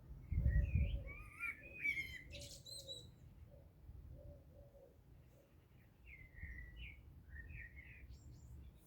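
Small birds chirping and calling in short bursts: a busy flurry of chirps in the first three seconds, then a few more about six seconds in. A low rumble near the start.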